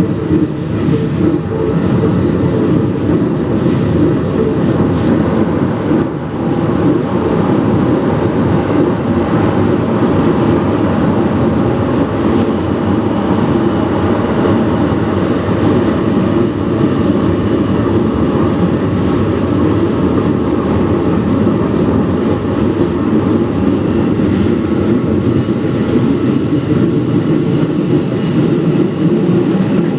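Keikyu electric trains (1500 series and new 1000 series) passing close by, a loud, steady rumble of wheels on rails.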